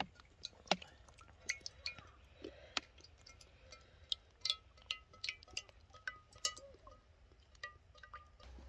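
Scattered sharp crackles and pops from the fire and hot oil in an outdoor cast-iron cauldron (kazan) heating up for frying, with short high pings in between.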